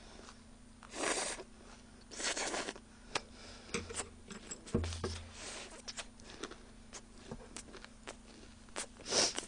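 Close-miked eating sounds: a person slurping food from a bowl, with loud slurps about a second in, around two and a half seconds in and near the end, and small wet mouth clicks of chewing between them.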